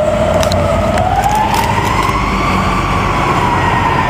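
An emergency vehicle siren wailing, its pitch rising slowly for about two seconds and then slowly falling, over steady road traffic noise.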